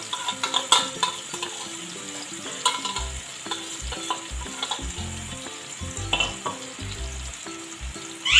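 Marinated chicken pieces sizzling and crackling as they fry in oil in a nonstick frying pan over a high gas flame, with a burst of sharp pops in the first second. The sizzle comes from the marinade's water boiling off in the hot oil.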